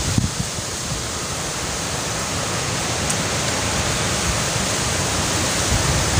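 Storm wind blowing steadily, an even rushing hiss.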